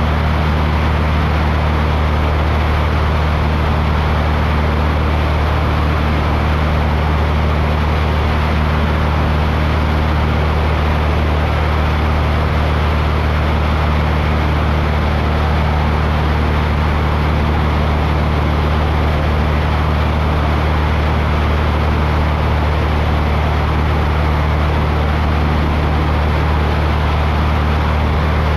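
Small aircraft in flight: a steady low engine drone with an even rush of air noise over it.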